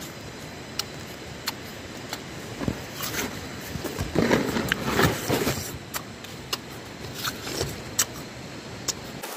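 A person biting and chewing a raw Asian pear (naspati) close to the microphone: scattered sharp crunches, thickest about four to five and a half seconds in, over a steady low rumble.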